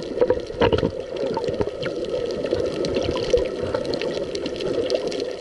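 Water gurgling and bubbling, heard with the microphone under water: a steady, muffled rush with many scattered clicks and crackles.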